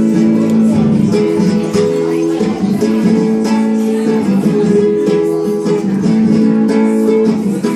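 Live acoustic guitar music, strummed, with held notes.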